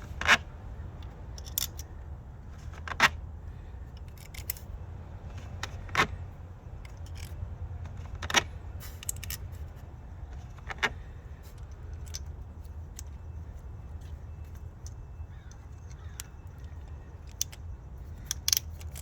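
Small metal screws clicking and tapping against the engine's coil packs as they are set in place and threaded in by hand: a sharp click about every two and a half seconds through the first half, then a quick few near the end.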